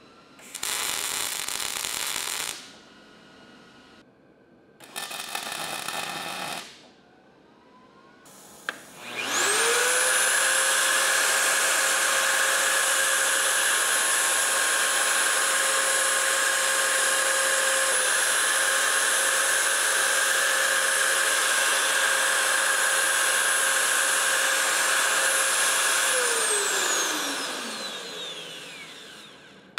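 Two short bursts of tack welding on steel, then a Milwaukee magnetic drill press with an annular cutter spins up, runs at a steady pitch while boring a hole through a steel beam, and winds down near the end.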